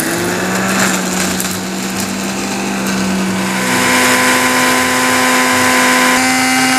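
Philips blender's small grinder jar running, milling fried garlic and fried shrimp crackers into dry koya powder. A steady motor hum whose pitch steps up about halfway through.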